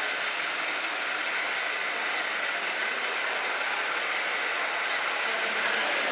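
Steady whirring of the small electric motors and gearboxes of 1/14-scale RC construction models running.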